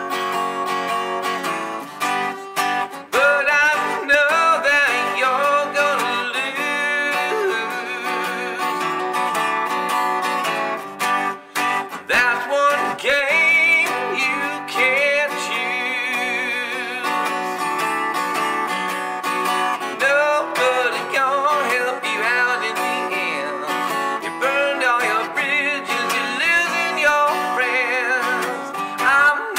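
Country song instrumental break: a strummed acoustic guitar with a wavering lead melody over it.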